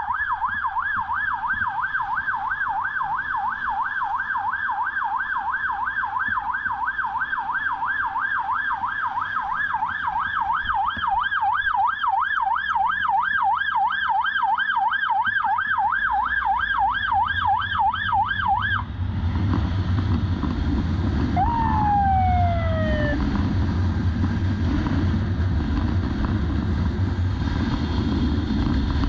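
Police motorcycle escort siren on a fast yelp, warbling rapidly up and down, cutting off suddenly about two-thirds of the way through. After it the motorcycle's engine and wind noise are louder, with a brief falling tone shortly after the siren stops.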